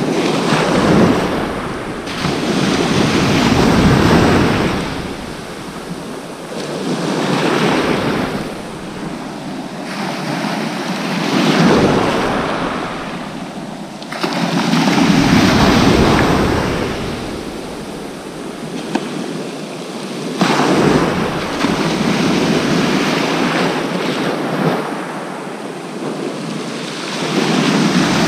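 Sea waves breaking and washing onto the beach, each surge swelling and fading every few seconds.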